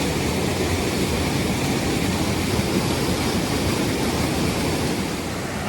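Mountain stream tumbling over a small waterfall: a steady, full rush of water.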